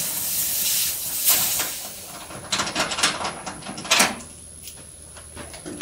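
Refrigerant hissing out as the gauge manifold hose is unscrewed from a mini split's service port: a loud hiss for about a second and a half, then a run of small clicks and taps from the hose fitting, with a sharper click about four seconds in.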